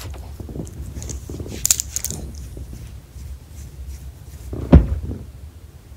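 Metal tags on a small dog's collar jingling as a hand scratches the dog's neck, with a clear burst of jingling about two seconds in. A single dull thump near the end is the loudest sound.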